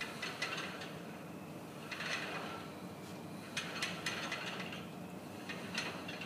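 Wooden warping mill being turned by hand as a warp is wound on with a warping paddle, giving short spells of creaking and clicking about every one and a half to two seconds.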